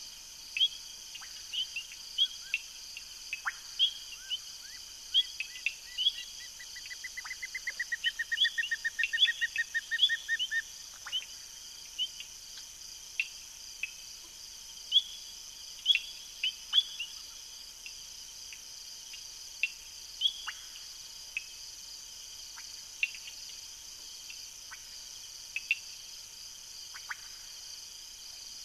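A chorus of crickets and other insects shrilling steadily, with many short, sharp calls that drop in pitch scattered through it. About a quarter of the way in, a rapid train of about two dozen even notes builds in loudness and runs for some four seconds.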